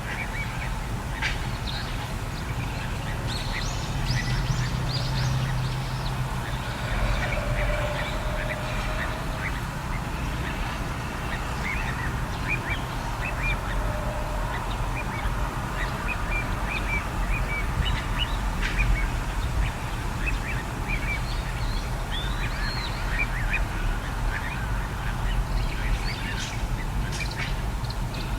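Little ringed plovers calling, short high chirps repeated throughout, over a steady low rumble, with a few lower calls in between.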